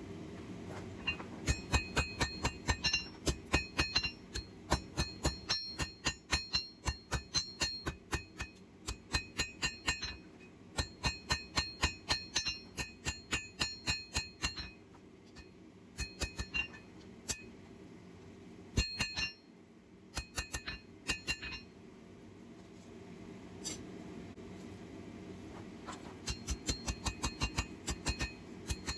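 Hand hammer striking hot steel on an anvil, drawing out a forged stem: quick ringing blows, about four a second, in runs with brief pauses between them. A steady low hum sits underneath.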